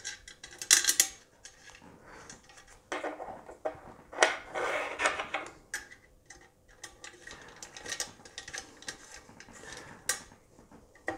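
Small metal parts and a hand tool clinking, clicking and scraping against the rear of an aluminium free-float rifle handguard as it is fitted and fastened over the barrel nut. Irregular handling noises, busiest about a second in and around four to five seconds in, with one sharp click near the end.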